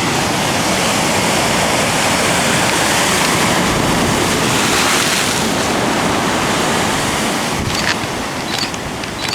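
A large ocean wave breaking against a lava-rock jetty and washing over it, a loud steady rush of surf with wind on the microphone. The rush eases off after about seven seconds, and a few light clicks follow near the end.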